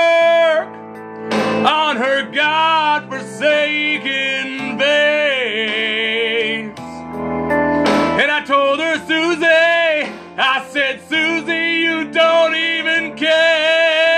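Man singing a rough, heavy rock vocal over rock backing music with guitar. About five seconds in he holds one long note with a wide vibrato.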